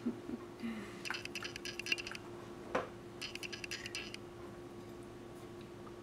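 A metal spoon scraping and clinking inside a glass jar of fried garlic, in two short spells with a single knock between them; a faint steady hum underneath.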